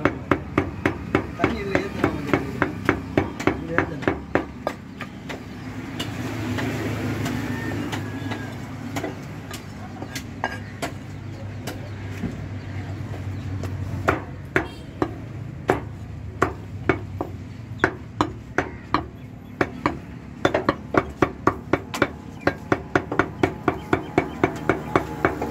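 Heavy meat cleaver chopping mutton on a wooden log chopping block: quick, even chops about three a second. They stop for several seconds midway, with only a few scattered knocks, then resume.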